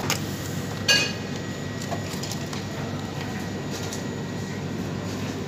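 A few light clinks of a hard object, the loudest about a second in with a brief ringing, over steady background noise.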